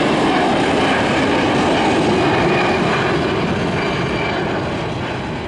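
Airbus A320 jet engines at takeoff thrust as the airliner climbs away, a loud, steady noise that eases slightly in the second half.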